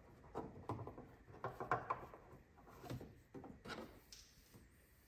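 Faint, scattered plastic clicks and rubbing from a hand working at a low-beam headlight bulb and its twist-off cover.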